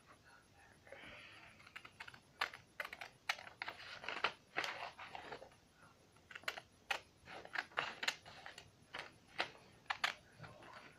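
Scissors snipping through a sheet of lined notebook paper: a run of short, irregular snips, with a brief pause a little past halfway.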